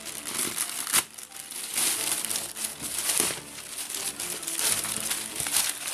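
Plastic mailer bag crinkling and rustling as it is slit open with a knife and pulled back from a foam-wrapped package, with a sharp click about a second in.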